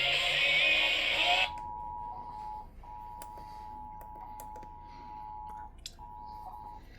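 A radio station jingle's music that cuts off abruptly about a second and a half in, followed by a quieter Emergency Alert System two-tone attention signal (853 and 960 Hz) that drops out twice in short gaps, with scattered sharp clicks.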